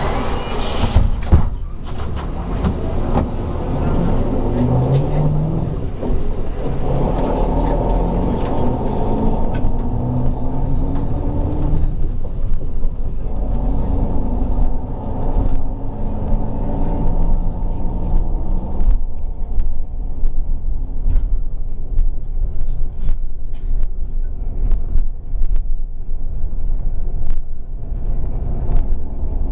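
Inside a moving city bus: the engine runs with its pitch rising and falling as the bus speeds up and slows, over a steady low rumble from the road. There is a knock about a second and a half in, and frequent rattles and clicks in the second half.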